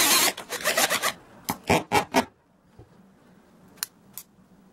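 Bosch cordless drill's motor stops just after the start as it pauses drilling into ceramic wall tile, followed by several short scraping rubs over the next two seconds. Two sharp clicks near the end come as the drill's mode-selector collar is turned.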